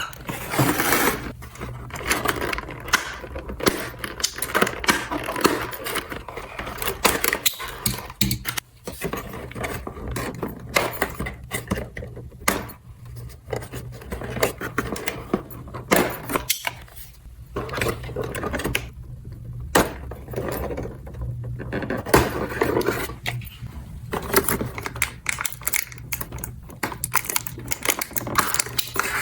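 Small plastic toy parts being handled, with frequent irregular clicks, knocks and rattles over a steady low hum.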